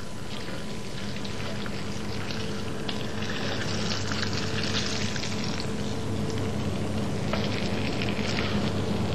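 Red mullet frying in oil and butter in a frying pan, a steady crackling sizzle that gets a little louder about three seconds in.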